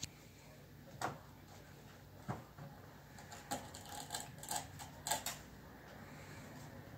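Thin metal chain clinking and skittering on a hardwood floor as a cat paws at it: a few sharp clicks about a second apart, then a quicker cluster of clinks between about three and a half and five seconds in.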